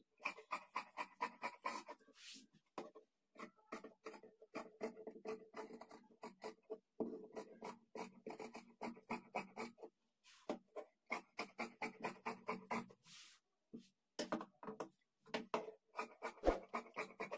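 Tailoring shears cutting through cloth along a chalk outline: a quick run of snips, several a second, with a few short breaks where the blades are repositioned.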